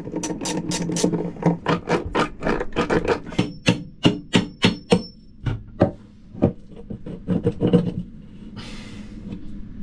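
Hammer blows on an old through-hull fitting being removed: a quick run of about four strikes a second for some five seconds, then a few scattered blows and a short flurry near the eight-second mark.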